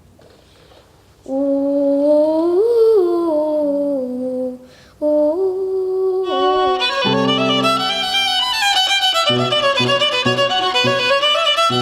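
Solo violin playing. After a quiet second comes a long held note with vibrato that slides up and back down, then a shorter held note after a brief break. About seven seconds in, the playing turns faster and fuller, with repeated low notes under it.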